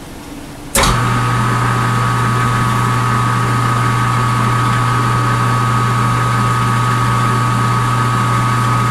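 Metal lathe switched on with a click about a second in, its motor then running at a steady speed with a low hum and a steady higher whine.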